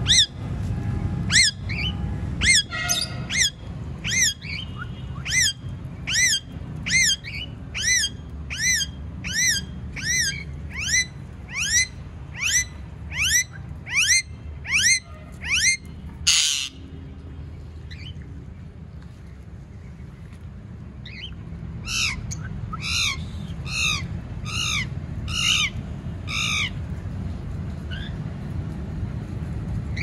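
Rose-ringed (Indian ringneck) parakeets squawking: a long run of shrill, repeated calls at about one and a half a second, then a brief noisy burst, a pause of a few seconds, and a second shorter run of calls.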